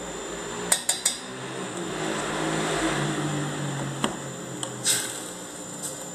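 Kitchen utensil sounds: a quick run of sharp clinks about a second in as seasoning is spooned into the pot, then a wooden spoon stirring fish broth in a stainless steel saucepan, knocking against the pan several times.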